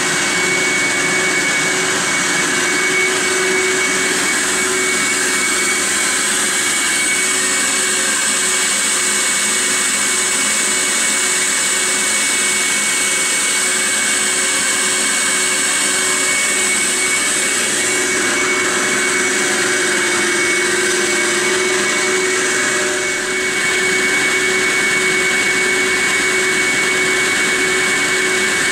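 BlackBoxVac Hurricane vacuum hold-down pump running on two of its four vacuum motors, together with the shop's dust collector: a loud, steady rush of air with a steady high whine.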